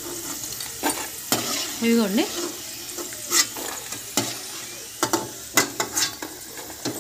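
Potato fries frying in hot oil in an iron wok, with a steady sizzle. Sharp clicks and knocks of a perforated steel skimmer against the pan come about seven times as the fries are scooped out.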